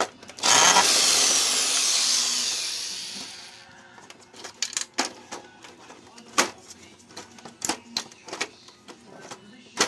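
Cordless drill-driver running for about three seconds and fading out, followed by a series of sharp clicks and knocks as the printer's plastic parts are handled.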